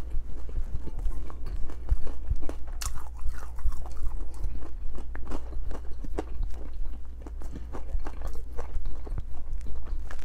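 Close-miked chewing of fried chicken wings: many small, irregular crunches and wet mouth sounds. A steady low hum runs underneath.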